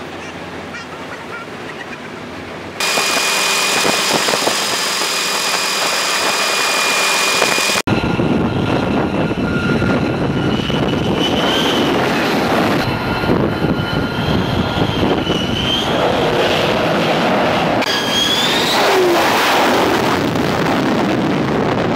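Fighter jet engines on an aircraft carrier's flight deck: a loud, steady jet roar with a high turbine whine that rises and falls, cutting abruptly from one shot to the next. The first few seconds are quieter steady background noise before the jet noise comes in suddenly.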